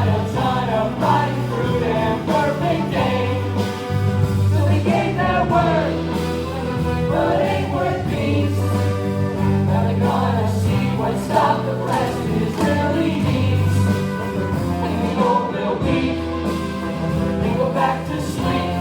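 Background music: a chorus of voices singing a show tune over a band with sustained bass notes.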